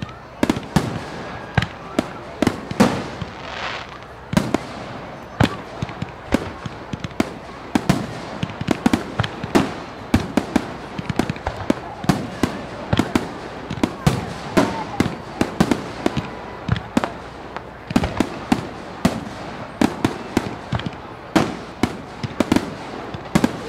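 Fireworks going off in a display: a steady run of sharp bangs, two or three a second, with smaller pops between them.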